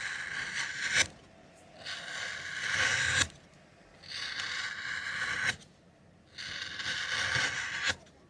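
Four scraping strokes, each about a second and a half long with short pauses between, several ending in a sharp click.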